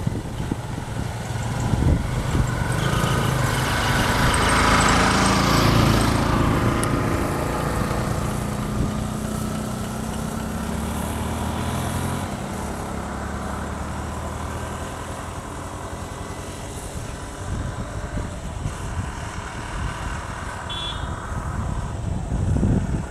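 A motorcycle engine passing close by: it grows loudest about five seconds in, then fades slowly as the bike rides off down the road, over a steady low rumble.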